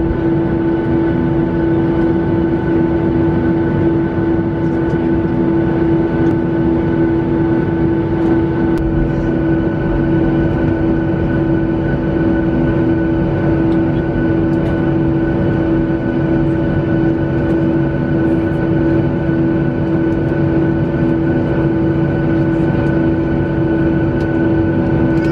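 Boeing 737 cabin noise while taxiing: the jet engines run at low power with a steady, loud hum and several constant tones. One higher tone drops out about nine seconds in.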